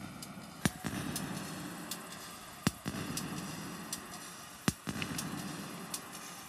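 Electronic music from a portable synthesizer rig played live: a loud sharp click every two seconds with fainter ticks between, over a low buzzing drone that swells after each loud click.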